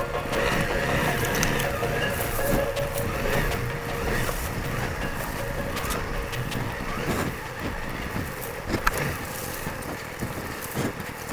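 Honda CRF300 Rally's single-cylinder four-stroke engine running at low speed on a rough dirt trail, with scattered knocks and rustling from the bumpy track and dry grass brushing past the bike.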